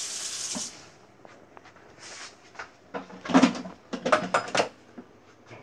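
Countertop blender running briefly and cutting off about a second in, after a quick re-blend of chile sauce. Then several hard knocks and clatters as the jar is lifted off the motor base and handled, the loudest near the middle.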